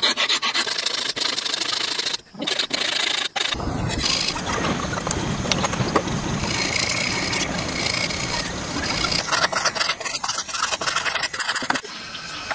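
Woodworking tools scraping and rasping on wood in repeated strokes, with a few seconds of continuous, fuller cutting noise in the middle.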